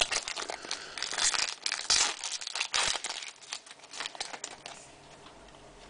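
Topps Chrome trading-card pack wrappers crinkling and crackling as the packs are handled and opened, in quick irregular crackles that die down near the end.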